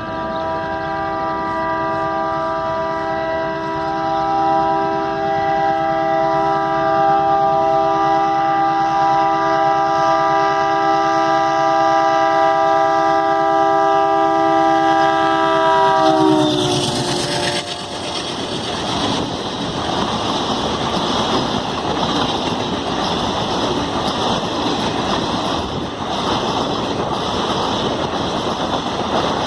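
Indian Railways locomotive air horn held in one long multi-tone honk for about sixteen seconds, dropping in pitch as it cuts off. Then the train runs past with a steady rush of engine and wheel noise and a clickety-clack of wheels on rail joints.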